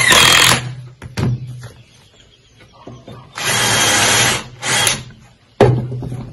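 Cordless drills running in short bursts, drilling and driving screws into small wooden blocks: a half-second run at the start, a brief blip about a second in, a run of about a second past the middle and a short one just after. A sharp knock near the end.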